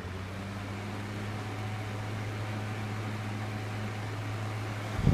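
Comfort Zone 6-inch turbo fan running on its high speed: a steady rush of air over a constant low motor hum. Right at the end its airflow starts buffeting the microphone.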